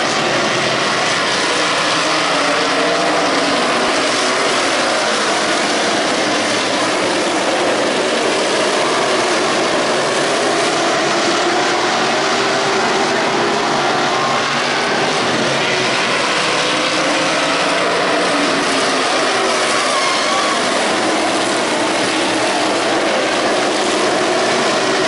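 A pack of modified race cars running around a paved oval, their engines blending into one loud, steady, continuous noise.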